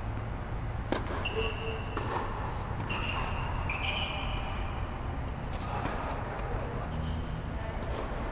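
Tennis ball struck by a racket on a serve about a second in and hit again about a second later, with short high squeaks of tennis shoes on the hard court between the hits and a couple more ball knocks later on. A steady low hum runs underneath.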